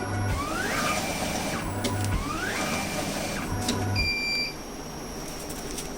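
Automatic tape cutting machine running a short batch: its feed motor whines up in pitch twice, about two seconds apart, as it feeds the tape, with a hum and a short beep around four seconds in before it goes quieter.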